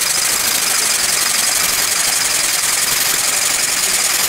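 3D-printed plastic oscillating-cylinder engine running fast on pressurised air fed through a tube: a loud, steady hiss of rapid, even exhaust puffs as the cylinder rocks and its ports switch between the high-pressure and exhaust sides.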